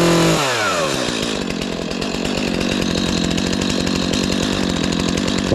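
Stihl MS 251 C two-stroke chainsaw, started after sitting over a year and now warmed up: held at high revs at first, it drops back to idle within the first second and then idles steadily.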